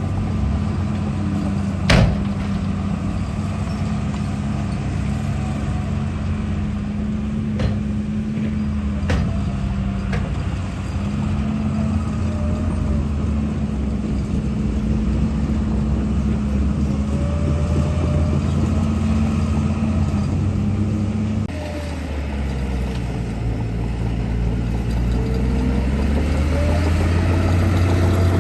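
A vehicle engine running steadily, its pitch shifting about two-thirds of the way through. Short rising whines come and go over it, with a few sharp clicks, the loudest about 2 seconds in.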